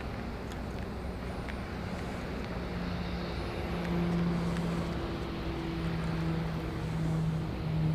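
A steady engine drone over a wash of outdoor noise, getting a little louder from about three seconds in.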